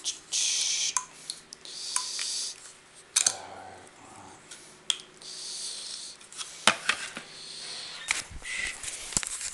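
Handling noise from working on a model aircraft with a small hand tool: bursts of rustling with scattered light clicks and taps, one sharper click a little after three seconds, and a cluster of knocks near the end.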